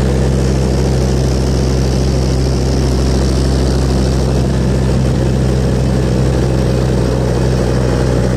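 Truck engine running at a steady pace, a constant low drone with road and wind noise, heard from inside the moving vehicle.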